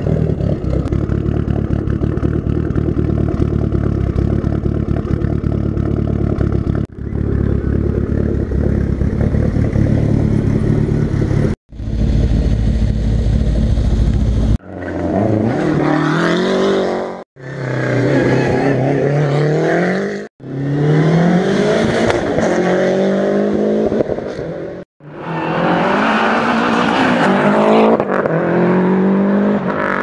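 Lancia Delta integrale rally cars' turbocharged four-cylinder engines. First a steady idle, then, after several abrupt cuts, cars accelerating hard, the engine note climbing and dropping back again and again as they shift up through the gears.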